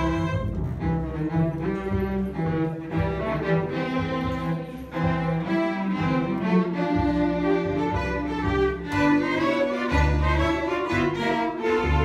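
A small string ensemble of violins, cello and double bass playing live, with held melody notes over a low bass line that moves note by note.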